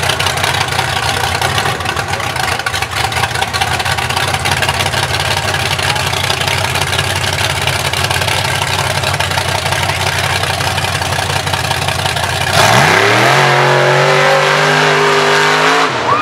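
Mega mud truck's engine running steadily at low revs, then about twelve seconds in it revs sharply up and holds at high revs as the truck makes its run through the mud bog.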